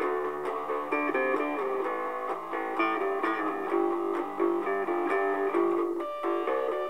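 Guitar playing an instrumental passage without singing: a melody of plucked notes over chords.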